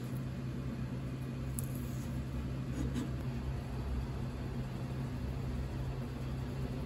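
Steady low machine hum of a kitchen, with a few faint clicks as a long sashimi knife slices fish on a cutting board.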